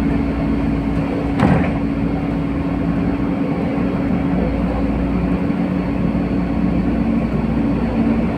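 LiAZ-5292.67 city bus running on the road, heard from inside the cabin: a steady engine drone with a low rumble, and a single sharp knock about one and a half seconds in.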